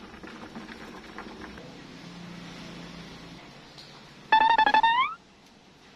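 Light background music, then about four seconds in a monkey's loud, high squeal lasting about a second, stuttering in quick pulses and rising in pitch at the end.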